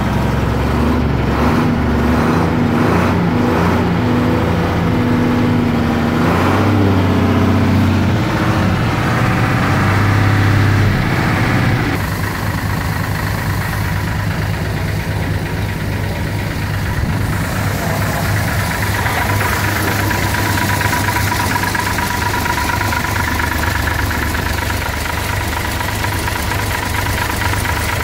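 Mercedes-Benz 1513 long-nose truck's diesel engine idling, louder and a little higher in pitch for the first dozen seconds, then running at a steady, lower idle.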